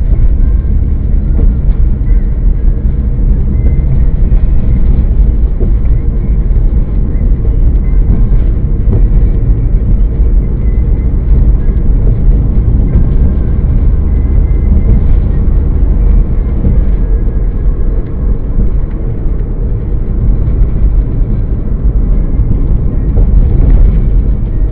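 A car being driven, its road and engine noise picked up by the dashcam inside the cabin as a loud, steady low rumble.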